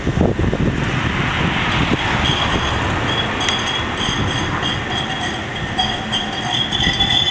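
Metropolitano de Granada light-rail tram (a CAF Urbos 3) running past on street track, with a steady high-pitched wheel squeal starting about two seconds in as it takes the curve.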